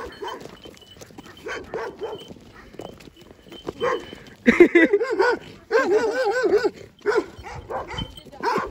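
Dogs barking at each other in a stand-off between a leashed dog and loose village dogs, with a fast flurry of loud barks about halfway through.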